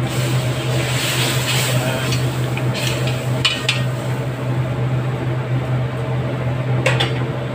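A metal spoon stirring soy sauce in a metal wok, scraping against the pan, with a few sharp clinks about three seconds in and again near the end. A steady low hum runs underneath.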